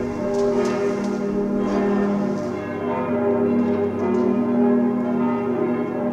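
Church bells ringing in a continuous peal, several sustained bell tones sounding together.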